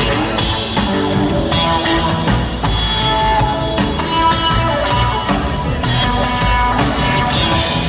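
Live rock band playing an instrumental passage: electric guitar notes over a drum kit and an upright double bass, heard from the audience.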